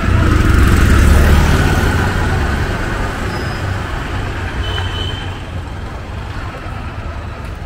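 A motor vehicle passing close by: a low engine rumble swells about a second in, then fades away over the next few seconds above steady street noise.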